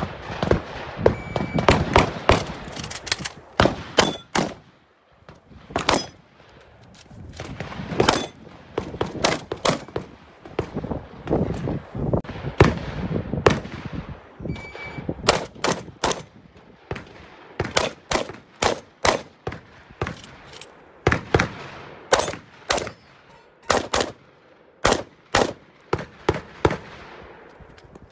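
Rapid semi-automatic fire from a Benelli M2 shotgun: sharp shots in quick pairs and strings, with short pauses between strings. A short electronic shot-timer beep sounds about a second in and again about halfway through, each starting a fresh run of shots.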